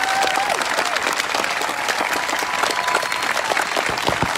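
Large crowd applauding, the clapping dense and steady, with a few long held whoops from voices in the crowd over it.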